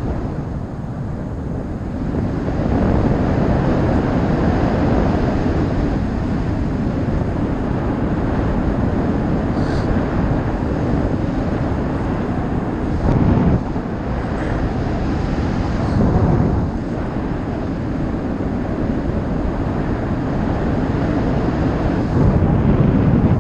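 Airflow buffeting the camera's microphone during paraglider flight: a steady low rushing wind noise that swells in gusts a few times.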